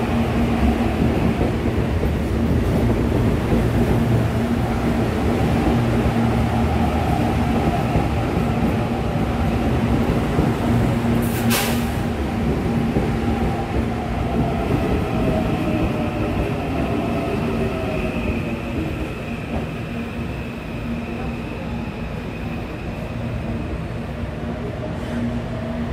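Electric commuter train running past along the platform: a dense rumble of wheels and motors over a steady low hum. There is one sharp knock about eleven seconds in, then a whine that falls in pitch while the rumble eases, and a thin high tone over the second half.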